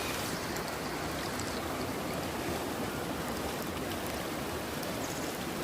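Steady rush of water flowing over a waterfall and rapids.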